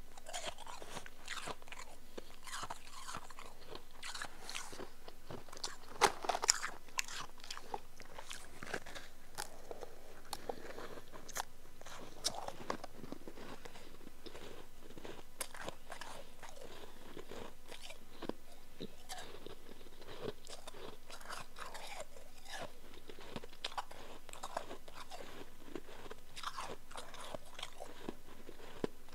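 A person biting and chewing powdery chunk ice, with dense, irregular crunching throughout. The loudest crunches come about six seconds in.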